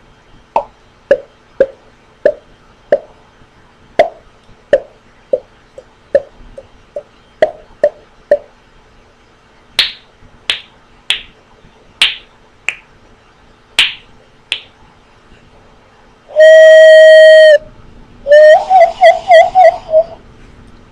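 A string of novelty noises. First come about a dozen short hollow pops, then half a dozen sharper, higher pops about two seconds apart. After a pause comes a loud, steady whistle-like tone lasting about a second, and then a loud warbling tone lasting about two seconds.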